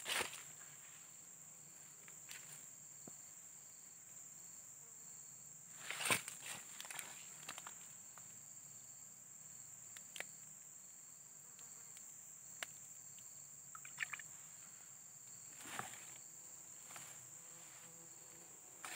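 Insects droning steadily in one high, even tone, with scattered short rustles and knocks from hands working a fishing line in the grass at the water's edge, the loudest about six seconds in.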